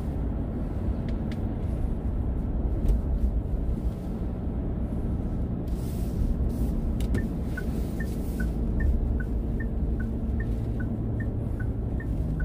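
Steady low road and engine rumble inside a moving car's cabin. About seven seconds in, the turn signal indicator starts ticking: a two-pitch tick-tock, about two and a half ticks a second.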